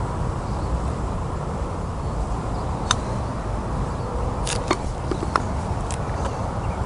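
Putter striking a golf ball once, a single sharp click about three seconds in, over a steady low background rumble. A few fainter clicks follow a couple of seconds later.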